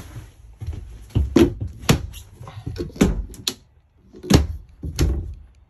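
About six sharp knocks and thumps, irregularly spaced over a few seconds.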